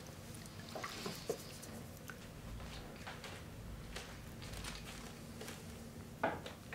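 Soft, scattered clicks, scrapes and squelches of a wet shave: a razor on lathered skin and a shaving brush in a bowl of lather. There is a louder knock near the end, over a faint steady hum.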